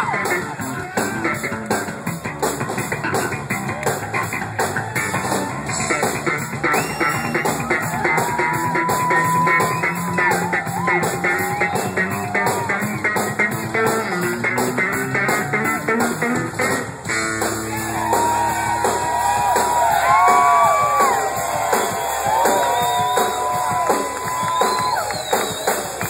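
Live rock band playing: an electric guitar takes the lead with long bent notes over bass guitar and drums, with no singing.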